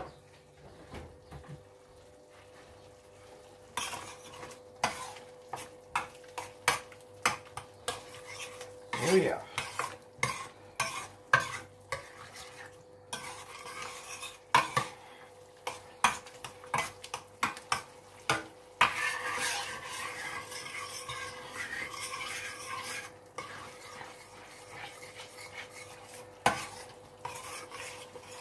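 A utensil stirring and scraping through frying onions and tomatoes in a large stainless-steel roasting pan, with frequent sharp knocks against the metal. The stirring starts about four seconds in.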